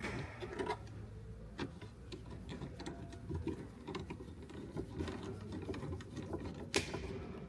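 Screwdriver winding screws back in, with fast, irregular clicking and a sharper click near the end.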